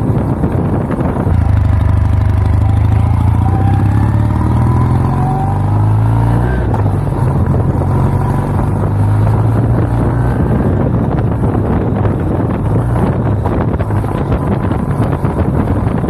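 Kawasaki W800 Cafe's air-cooled parallel-twin engine pulling under acceleration on the road. Its note comes up about a second in, rises in pitch, drops back about six and a half seconds in, and climbs again, over wind noise on the microphone.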